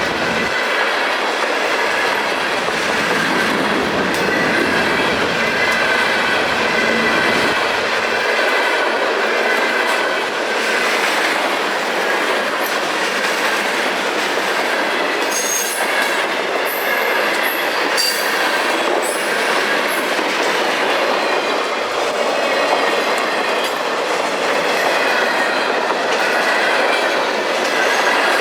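Freight cars of a passing freight train rolling through a grade crossing. Steady loud wheel-on-rail noise, with clickety-clack over the rail joints and high squealing tones from the wheels, and a few sharp clanks about halfway through.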